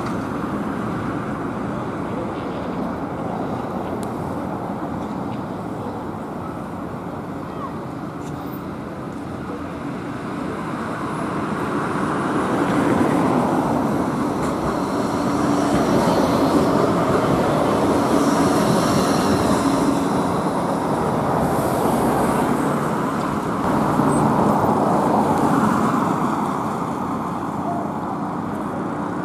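Bombardier Flexity 2 tram running along street track and passing close by: a steady rumble of wheels on rail that swells about halfway through, with a low hum and a faint high whine, then eases off near the end.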